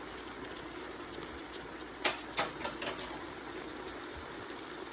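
Green leaves sizzling as they fry in oil in a pot, a steady hiss, with three or four sharp knocks of a utensil against the pot about two seconds in.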